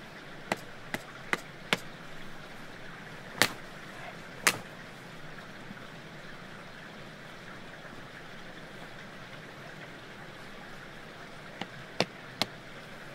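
Sharp knocks of a hatchet blade striking wood as kindling is split: four quick strikes at the start, two louder ones a few seconds in, and three more near the end. Under them runs a steady hiss of streaming water.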